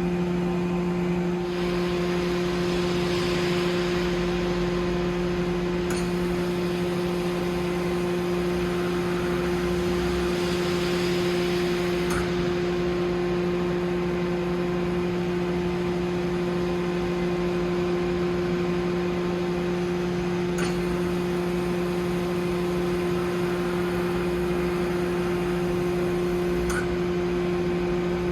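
Mori Seiki SL-204 CNC lathe running: a steady machine hum made of two even tones over a haze of noise, with a few faint clicks spaced several seconds apart.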